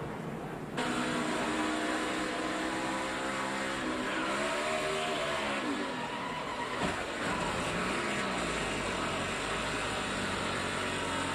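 A NASCAR Cup car's V8 engine, heard from on board, its pitch rising and falling as the revs change. There is a brief sharp knock about seven seconds in.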